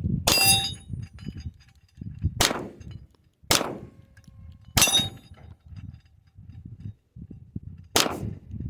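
Five pistol shots, spaced unevenly, each with a metallic clang and a short ringing tone, typical of hits on a steel target. Gusts of wind rumble on the microphone between the shots.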